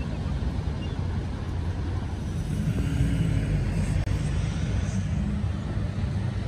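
A steady low outdoor rumble, with faint wavering tones in the middle.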